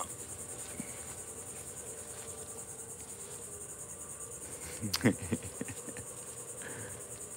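Insects trilling steadily outdoors: a continuous high-pitched, rapidly pulsing chorus. A short, louder sound breaks in about five seconds in.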